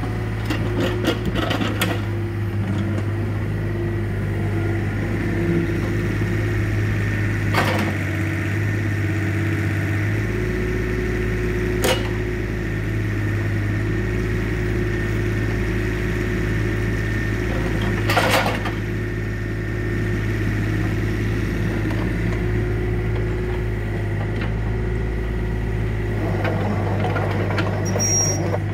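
Yanmar mini excavator's diesel engine running steadily, with a constant high whine, as the machine tracks off a flatbed truck deck onto the ground. Three sharp metallic knocks come through, several seconds apart.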